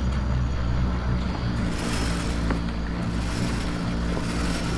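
Electric winch running steadily under load, hauling in the main halyard through a 2-to-1 purchase as the mainsail is hoisted.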